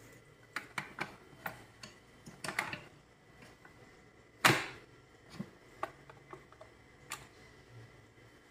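Scattered clicks and light knocks of an electric rice cooker's power cord and plug being handled and plugged in, with one loud sharp click about four and a half seconds in.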